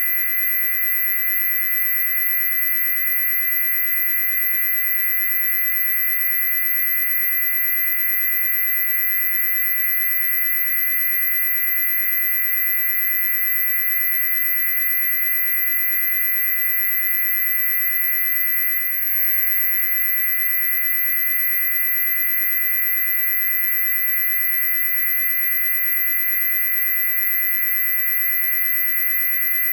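Loud, steady, high-pitched electronic tone: a piercing whine near the top of hearing layered over a cluster of lower steady tones, unchanging apart from a brief tiny break about two-thirds of the way through.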